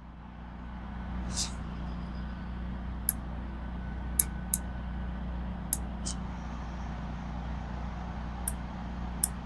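A Ruger 10/22 .22 rimfire rifle firing, about seven short sharp cracks spaced a second or more apart, two of them in quick pairs, over a steady low rumble.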